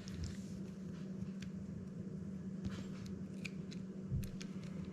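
Shimano Calcutta Conquest BFS baitcasting reel being handled as its side-plate knob is turned to release the side plate: a few faint, scattered small clicks and taps, with a soft bump near the end, over a steady low hum.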